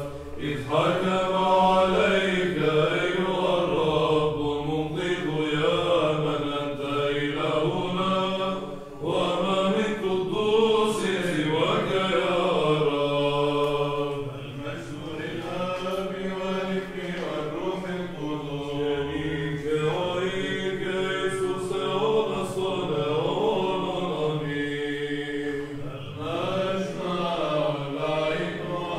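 Byzantine chant of the canon's odes, sung by monks' voices: a melody that moves in long, ornamented phrases over a steady low held drone (ison).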